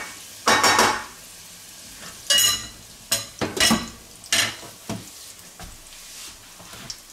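Steady sizzling of breaded Lyoner slices shallow-frying in oil. Over it come several short scraping strokes as a wooden spoon stirs Brussels sprouts and bacon in a stainless steel pot, and a metallic clink as the lid is set on the pot.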